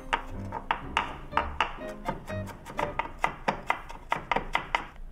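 Chef's knife chopping carrots on a wooden cutting board: a quick run of sharp knocks, about four a second, over background music with sustained notes.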